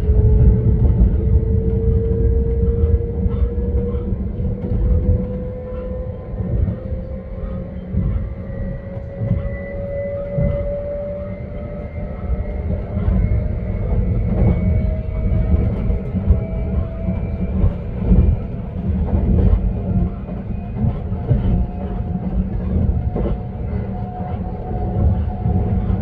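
Passenger train running on the rails with a steady low rumble and irregular wheel clicks. Over it, a traction-motor whine rises slowly and evenly in pitch as the train gathers speed.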